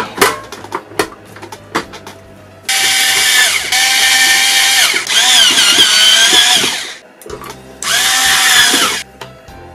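Clicks and knocks of the sheet-metal chassis cover being fitted, then a handheld electric screwdriver driving the case screws. First comes a run of about four seconds with its motor whine wavering in pitch, then a shorter run near the end.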